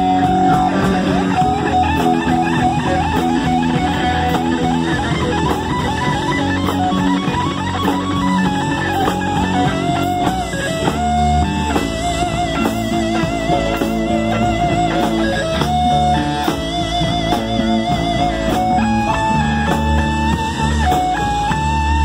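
Live rock band playing: a distorted Les Paul-style electric guitar plays a lead solo, its held notes bent and shaken with wide vibrato, over electric bass and drum kit.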